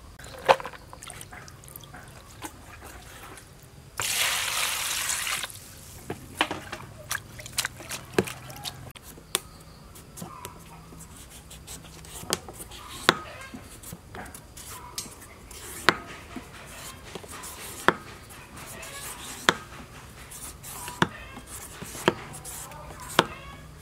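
Food preparation by hand: crisp snaps of water spinach stems, then a green papaya being peeled in long strips, each stroke ending in a sharp crisp click about every one and a half to two seconds. A brief rush of hiss lasts about a second and a half near the start.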